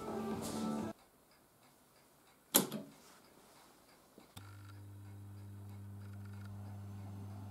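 A single sharp click, then a couple of seconds later a steady low hum starts suddenly and holds: a Philips Capella 663 valve radio being switched on, its speaker humming with mains ripple while the valves warm up.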